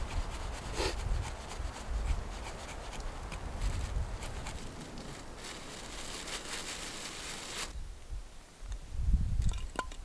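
Knife blade scraping along wood in quick repeated strokes, shaving thin curls off a stick for fire tinder. The scraping stops about three-quarters through, followed by a few low thumps near the end.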